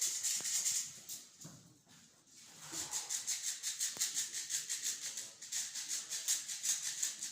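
Airsoft electric guns firing on full auto: a fast rattle of shots for about the first second, a short lull, then near-continuous bursts from about three seconds in.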